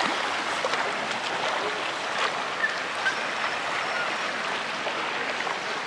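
Muddy storm floodwater rushing across a street, a steady rush of flowing water.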